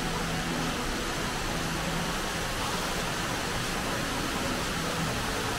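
Steady rushing background noise of a large indoor store hall, with faint distant voices.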